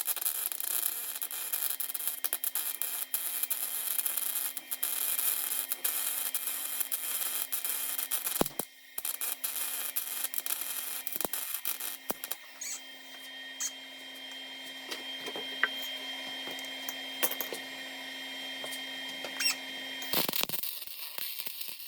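Welding on car-body sheet metal, filling gaps: a crackling arc with many sharp pops over a steady hum. It breaks off briefly about eight seconds in, thins to sparser crackles in the second half, and flares again near the end.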